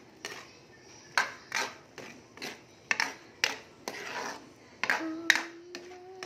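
Metal ladle scraping and knocking against a metal cooking pan, about ten irregular strokes, as it stirs a stew of vegetables and meat in broth. A steady humming tone comes in near the end.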